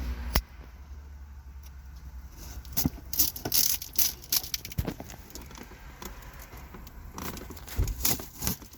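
Knife cutting and tearing into a toolkit's packaging: scattered sharp clicks and scrapes, bunched about three seconds in and again near the end.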